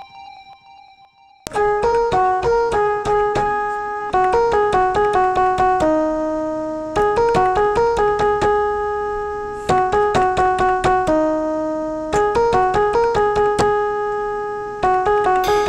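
Instrumental music: a keyboard playing a quick, repeating melody of short notes, starting about a second and a half in after a brief quiet gap.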